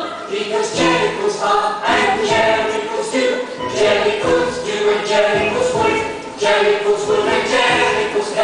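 Music with a choir singing over instrumental accompaniment, at a steady beat.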